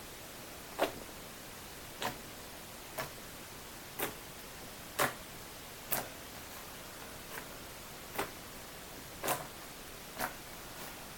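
Butter slime being pressed and poked, making short clicks and pops about once a second, irregularly spaced.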